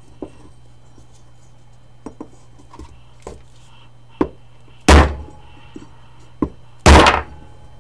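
A claw hammer striking a wooden block to drive a new inspection window into a motorcycle brake master cylinder, a tight interference fit. A few light clicks of handling come first. Then there are two hard blows about two seconds apart, one about halfway through and one near the end, each after a lighter setting tap.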